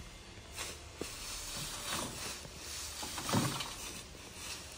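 Pitchfork tines raking and scraping through dry pine straw. The straw rustles in repeated forkfuls, with the loudest scrape about three and a half seconds in.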